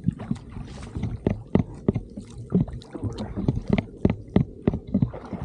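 Oars working in their oarlocks as a duck punt is rowed: a run of sharp, uneven knocks, some in quick pairs, with the blades dipping into the water on each stroke.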